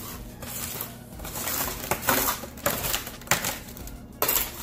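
A utensil raking and stirring salted french fries in a pan: several short scraping, rustling strokes with a couple of sharper knocks.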